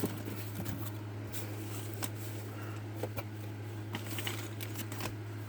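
Faint rustling and soft clicks of paper and cardboard being handled as a subscription box is opened and its contents taken out, over a steady low electrical hum.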